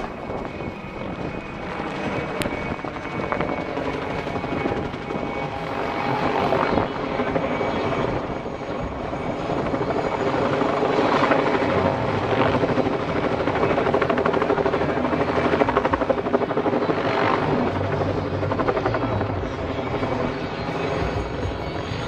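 Mil Mi-2 helicopter flying overhead: the whine of its twin turboshaft engines over the rhythmic beat of the main rotor, growing louder through the first half as it passes close.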